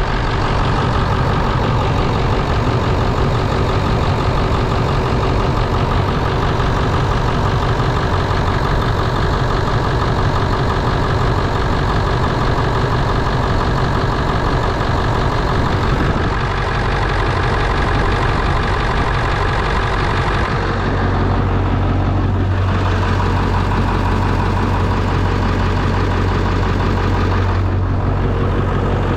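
Early 1999 Ford 7.3-litre Power Stroke V8 turbo-diesel idling steadily on a cold start; in the owner's view, a cold buzz test of the injectors has freed two sticking injectors for now. The low rumble grows deeper and stronger about two-thirds of the way through.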